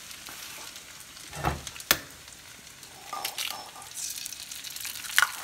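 Steady frying sizzle, with a dull knock and a sharp click in the first two seconds. An egg is cracked into hot oil in a nonstick skillet, and the sizzling swells about four seconds in.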